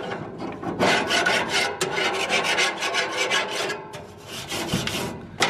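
An all-metal grill brush, wire bristles and scraper edge, scrubbing back and forth over metal grill grates in quick rasping strokes, with a brief quieter stretch about four seconds in.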